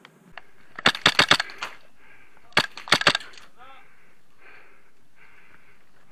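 Airsoft gun firing two short bursts of sharp, rapid cracks, the first about a second in and the second a couple of seconds later.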